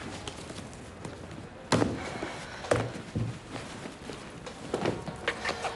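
Several separate short knocks and thuds as a bag and things on a desk are handled, the sharpest nearly two seconds in.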